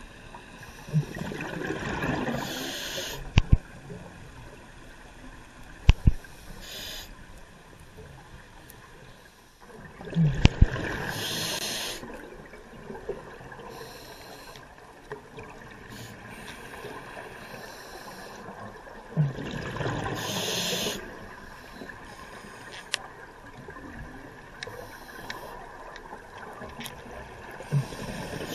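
Scuba breathing heard underwater through a regulator. Three breaths, each a rush of hiss and bubbles lasting about two seconds, come roughly nine seconds apart, with a few sharp clicks between them.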